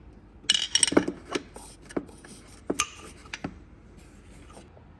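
Metal hand tools clinking, clicking and rattling as a deep-well socket is tried on an oil pressure sensor. A cluster of sharp clicks and scrapes falls in the first three and a half seconds, followed by quieter handling.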